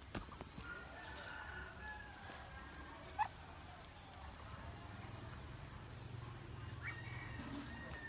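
Quiet outdoor ambience with faint, thin bird calls, likely from poultry. About three seconds in there is a sharp click with a short rising chirp, and a low steady hum comes in around halfway.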